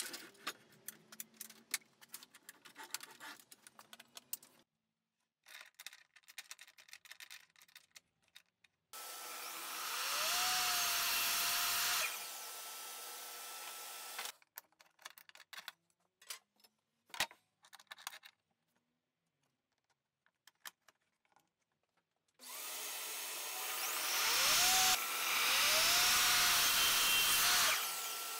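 Evolution mitre saw cutting 12 mm plywood strips, twice: each time the motor spins up with a rising whine and the blade goes through the wood. Light knocks and clicks of wood being handled and positioned come before and between the cuts.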